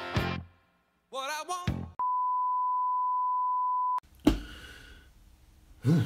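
A steady, high-pitched electronic beep held for two seconds, like a censor bleep or test tone. Just before it, guitar music ends and a short warbling sound plays. After it comes a sharp knock, and a short low sound near the end.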